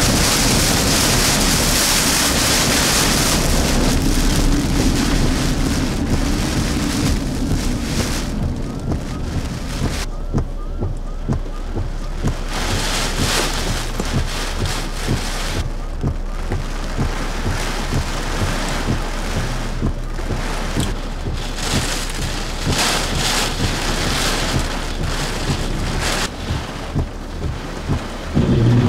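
Wind-driven rain of Hurricane Idalia's outer bands: a loud steady rush of wind for the first few seconds, then rain spattering in many quick irregular taps over a continuing hiss.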